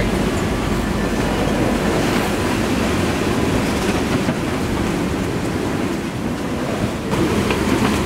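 Steady rush of strong wind on the microphone and waves running past a sailboat's hull under way in rough seas.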